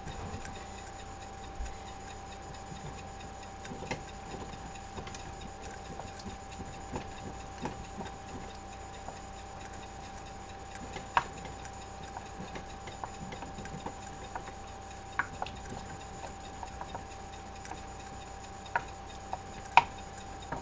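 Sparse light clicks and taps of kitchen utensils on stainless steel pots and the stovetop, a few sharper ones near the end, over a steady faint background tone.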